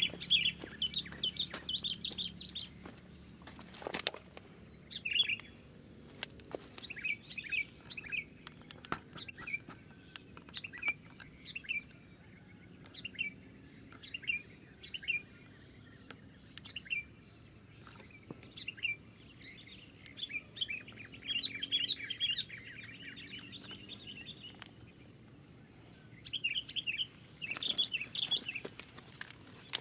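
Sooty-headed bulbuls calling: bursts of quick, high chirps repeated throughout, thickest at the start and again in the last third. A single sharp click about four seconds in.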